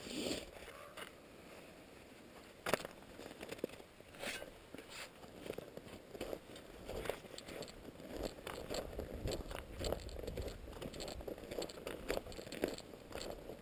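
Footsteps crunching in snow at a steady walking pace, starting a few seconds in, with a single sharp click before them.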